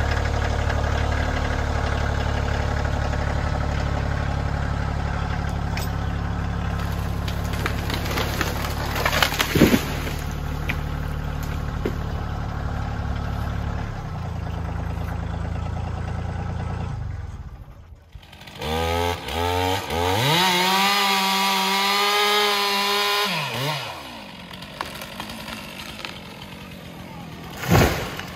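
Tractor engine running steadily, then fading out. A chainsaw is then started and revved up in steps, held at high revs for about three seconds, and let off.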